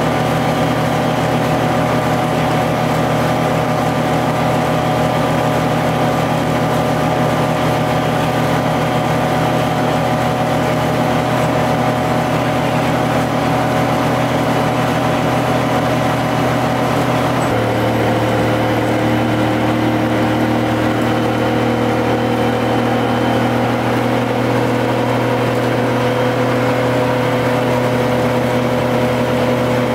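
GM TDH-5303 transit bus's two-stroke Detroit Diesel engine running steadily under way. About two-thirds of the way through, the engine note changes abruptly to a lower pitch.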